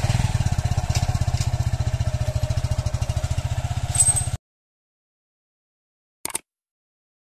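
Suzuki Gixxer SF 150's single-cylinder engine running with a steady, even beat. It cuts off suddenly about four seconds in.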